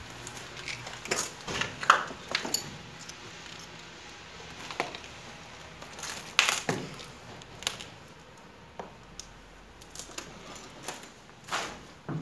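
Irregular scuffs, clicks and knocks of people moving about on foot, the loudest knock about six and a half seconds in.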